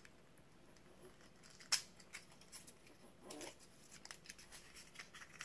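Small box being opened by hand: faint scattered clicks and rustles of cardboard or paper, with one sharper click about a second and a half in.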